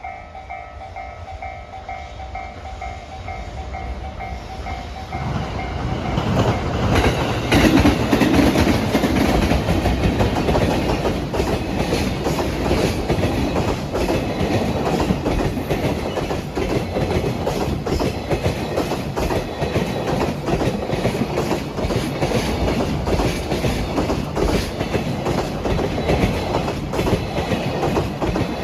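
A Japanese level-crossing warning bell rings in a pulsing beat as a JR Freight EF210 electric locomotive approaches, its rumble growing louder. The locomotive passes about seven seconds in, drowning out the bell. A long train of container wagons then rolls by with a steady, rapid clickety-clack of wheels over the rail joints.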